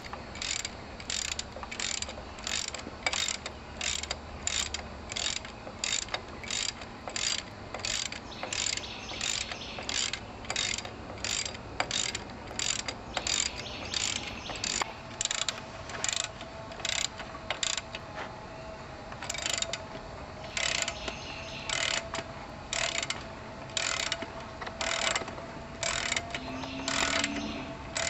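Hand socket ratchet being worked back and forth to loosen bolts on a Sears ST16 garden tractor's rear plate. Each back-stroke gives a short burst of pawl clicks, about two a second, becoming more irregular with pauses in the later part.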